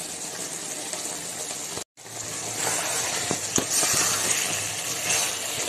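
Thick egg and soybean curry sizzling in a metal kadai as a spoon stirs it, with a few light clicks and scrapes of the spoon against the pan about three to four seconds in.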